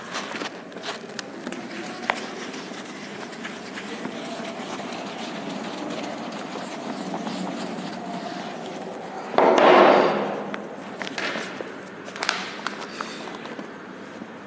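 A chalkboard being wiped clean with a duster: a continuous rubbing, with one louder burst of about a second roughly nine and a half seconds in, then a few light knocks.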